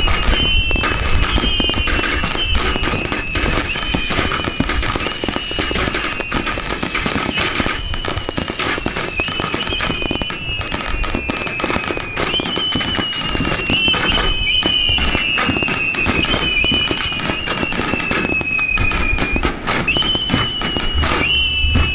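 Star mine fireworks barrage: a dense, unbroken run of bangs and crackling bursts. Over it, high whistling tones keep jumping up and then sliding slowly down, a new one every second or two.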